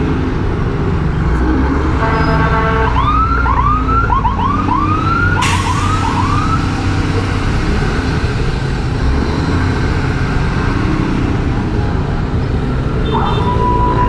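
Emergency-vehicle siren giving a quick run of short rising whoops, over a steady rumble of road traffic. Near the end a held siren tone sounds, first higher, then lower.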